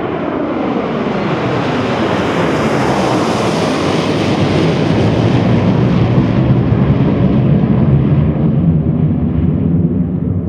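Boeing 727 jet passing low overhead at high power on a low approach and climbing away, its three Pratt & Whitney JT8D turbofans running. A sound falling in pitch as it goes by, then a deep rumble that grows louder over the later seconds.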